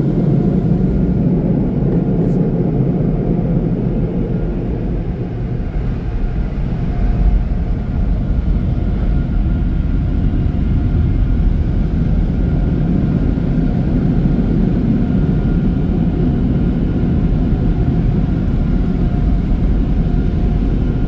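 Car wash dryer blowers running, a loud, steady rushing drone heard from inside the car as it passes through the drying stage of the tunnel.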